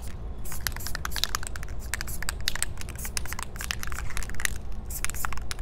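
Aerosol spray paint can hissing in many short, quick bursts as paint is sprayed onto the wall.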